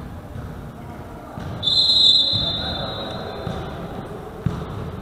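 Referee's whistle blown once, a steady high tone lasting about a second and a half, signalling the serve in a sitting volleyball match. A single sharp thud near the end, over the low murmur of voices in the hall.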